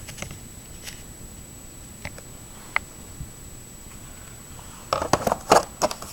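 Plastic robot-vacuum parts being handled: a few faint clicks, then a burst of clattering knocks near the end as a part is picked up and moved.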